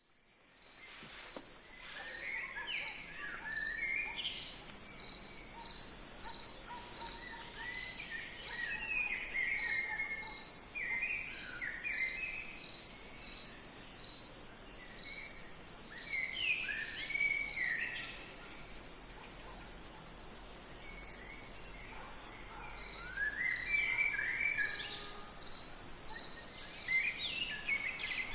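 Rainforest ambience: an insect chirping in a steady high pulse, about two a second, with birds calling in short bursts of quick gliding notes every few seconds.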